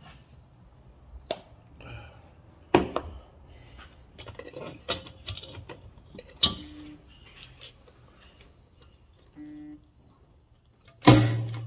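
Scattered clicks, taps and knocks of tools, wires and parts being handled on a workbench, with two short low hums in the middle. Near the end there is a loud knock followed by a brief low hum.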